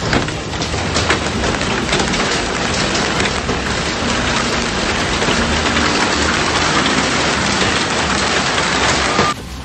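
Hailstorm: hailstones pelting down on water and ground, a loud dense hiss packed with countless small sharp hits that thickens as the storm intensifies. It cuts off abruptly near the end.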